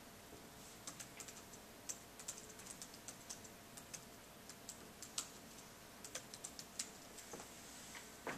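Typing on a laptop keyboard: a run of quick, irregular key clicks starting about a second in, as a terminal command is typed out and entered.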